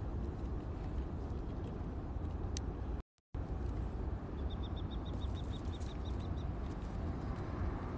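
Outdoor background of a steady low rumble, with a small bird's trill of rapid, evenly spaced high chirps, about six a second, in the middle. The sound drops out completely for a moment about three seconds in.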